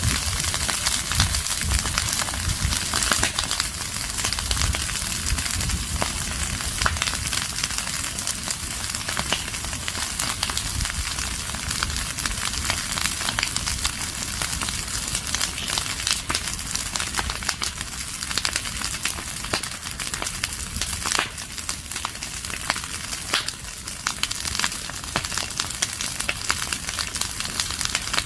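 Fire of burning dry leaves and twigs crackling steadily: a dense run of small pops and snaps over a constant hiss.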